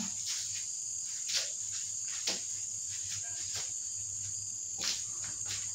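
A steady high-pitched insect trill, with a few short clicks and knocks from hands handling plastic-wrapped food and dishes on the table, about a second and a half, two seconds and nearly five seconds in.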